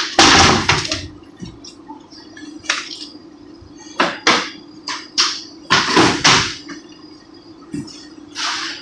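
Broom sweeping strokes, a dozen or so short scrapes at an uneven pace, the loudest near the start and around four to six seconds in, over a steady low hum.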